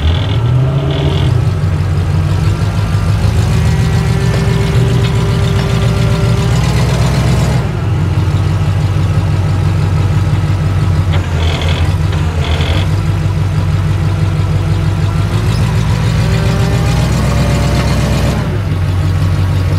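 A tow truck's engine idles steadily, with a whine that shifts in pitch. A few brief clinks come about a second in and again midway.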